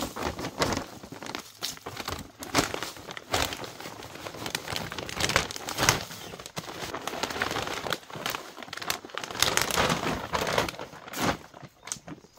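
Plastic compost sack crinkling and rustling as a gloved hand scoops compost out of it and drops it onto the soil, in irregular scrapes and rustles that die away near the end.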